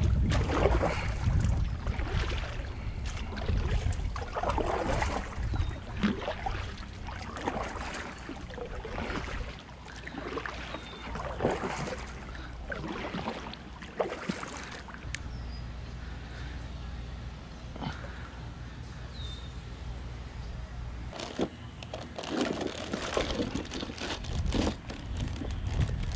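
Water sloshing against a kayak in irregular bursts over a steady low rumble.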